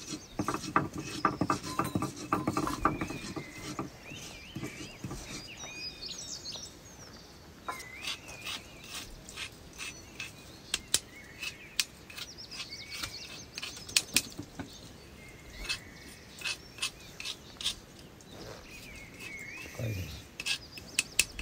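A dense run of rattling clicks for the first four seconds, then scattered sharp clicks and knocks, with birds chirping in between.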